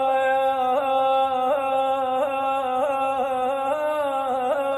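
A man singing one long sustained note on a steady pitch, with small regular catches in the voice about every three-quarters of a second and a slight dip near the end.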